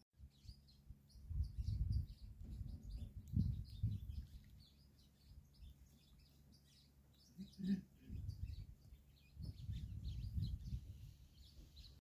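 Small birds chirping in many short, quick calls throughout, with bouts of low rumble on the microphone coming and going, loudest around two, three and a half, eight and ten seconds in.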